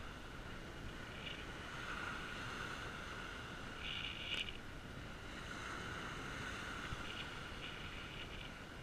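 Surf breaking on a sandy beach with wind buffeting the microphone as a steady rushing noise, and a single click about four seconds in.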